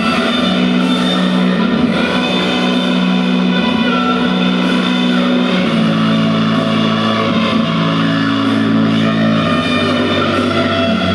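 Electric guitar played through a 5 W class-A tube amplifier with a 6V6GT power valve, volume cranked past 7 into overdrive: sustained distorted chords, changing to a lower chord about halfway through. The grit is the amp's own tube distortion.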